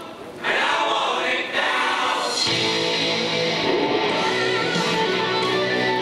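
Fighter's entrance music with singing; after a short dip at the start, a fuller band with electric guitar and bass comes in about two and a half seconds in.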